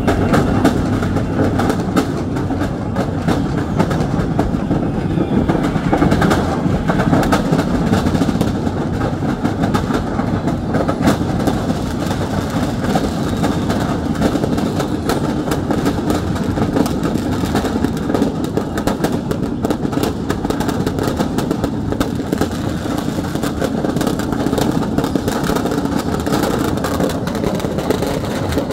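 A shop's stock of firecrackers burning and going off: a dense, continuous crackle of small bangs and pops over a steady rush of noise.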